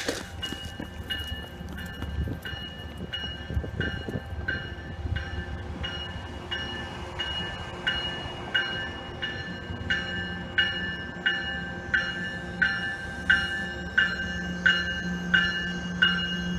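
Commuter rail train approaching with its warning bell ringing steadily, about one and a half strokes a second, growing louder as it nears, over the low rumble of the train.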